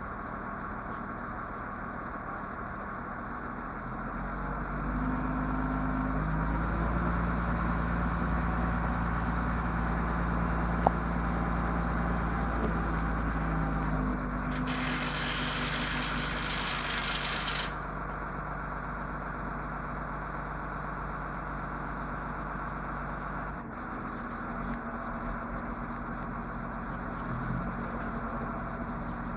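Heavy truck engine running steadily. About four seconds in it speeds up and holds higher revs for around ten seconds, then drops back. A loud hiss lasting about three seconds comes near the middle.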